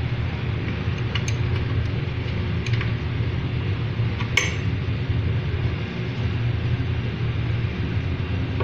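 A few light metallic clinks of hand tools and screws as the fender screws come off a motorcycle, the sharpest about four seconds in, over a steady low rumble.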